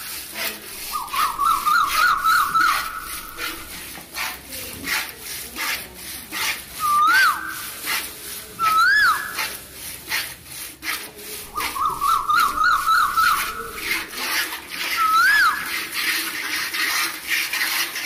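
Milk squirting from a cow's teats into a part-filled aluminium bucket of frothy milk during hand milking, in short regular squirts of about two a second. A high whistled call that rises and falls recurs every few seconds, with two longer warbling stretches.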